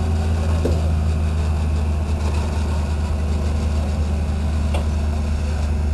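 Rock buggy engine running steadily, a low even drone.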